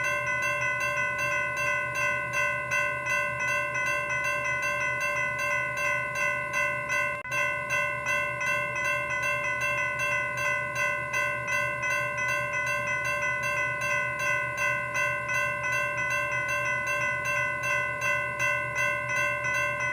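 Railroad grade crossing warning bell ringing continuously in a steady, evenly repeating ding, its ringing tone held without dying away between strokes.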